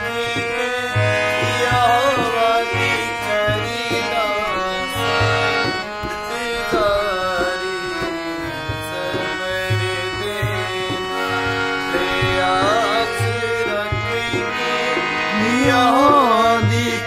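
Harmonium playing held chords and melody with a dholak keeping a steady hand-drum beat, and a man singing a Punjabi song over them in phrases, loudest near the end.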